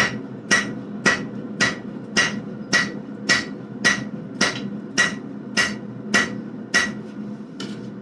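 Hand hammer striking a hot forge-welded damascus billet of 1095 and 15N20 steel on the anvil, hitting the bar on its side, in a steady rhythm of about two blows a second with a ringing note on each strike. The blows stop about seven seconds in, leaving a fainter tap or two. The welds are holding under the blows.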